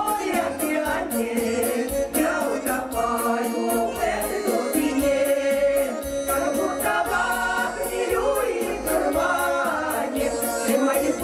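A four-woman folk vocal ensemble singing a Russian folk-style song in harmony into microphones, over an instrumental backing track with a quick, even percussion tick.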